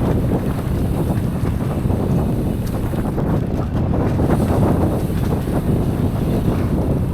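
Wind buffeting the microphone of a camera riding along on a mountain bike, with a steady run of small knocks and rattles from the bike on the trail.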